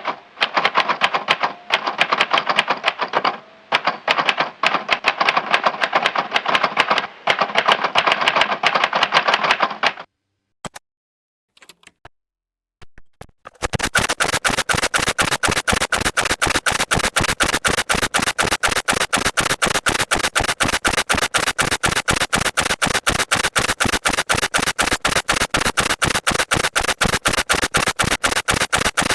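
Computer keyboard typing: fast runs of key clicks for about ten seconds, a short pause with a few scattered clicks, then a steady, evenly paced run of clicks at about four or five a second.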